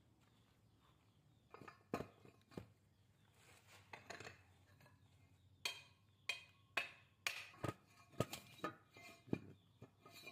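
Irregular sharp knocks and clinks from working and handling a hollowed old wooden ox-cart roller: a few single knocks about two seconds in, then a quicker uneven run of them in the second half.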